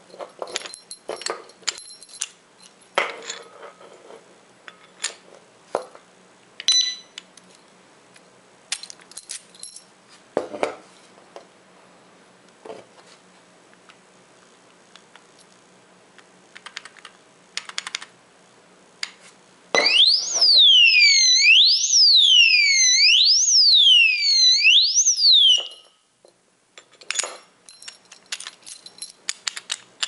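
Anti-theft alarm padlock's built-in siren going off for about six seconds, a loud electronic warble sweeping up and down roughly once a second, then cutting off abruptly. Before and after it, the lock and its key click and knock as they are handled.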